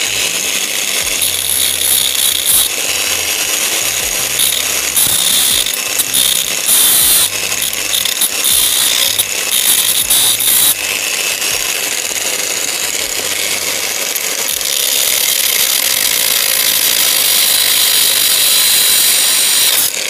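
Angle grinder cutting into the steel casing of a washing machine's spin-dryer motor, grinding off the four bolts that hold the motor together so it can be opened. The grinding is loud and unbroken, rougher and more uneven in the first half and steadier after that.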